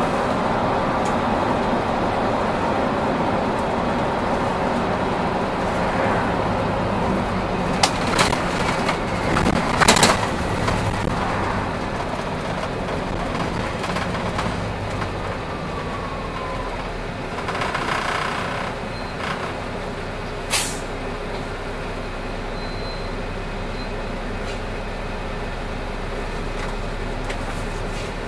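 Solaris Urbino 8.9LE city bus driving and slowing to a stop, a steady hum of engine and road noise that grows quieter. A couple of sharp knocks come about eight and ten seconds in, a short hiss a little past halfway, and a sharp click soon after.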